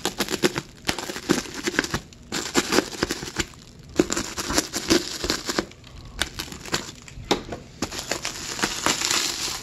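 Clear plastic stretch wrap crinkling and crackling as it is slit with a utility knife and pulled apart by hand, in quick, irregular crackles.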